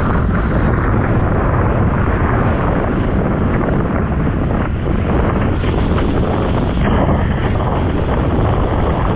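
Strong wind buffeting the microphone of a camera on a windsurfing rig, a loud steady rush, over the splash of the board cutting through choppy water.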